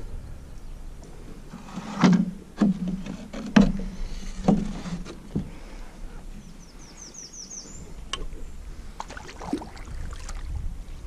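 Hollow knocks from a plastic kayak as it is paddled off a wooden dock, about five of them in quick succession, each with a low ring. A short run of high chirps comes about halfway through.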